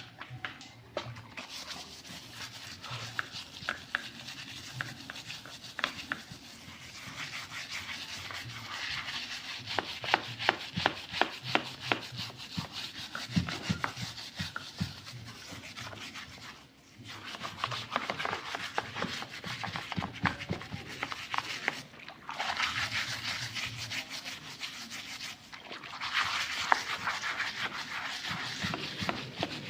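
Rapid scrubbing strokes on a motorcycle engine part being cleaned by hand, a dense scratchy rubbing with many small clicks. It runs in long stretches with a few brief pauses.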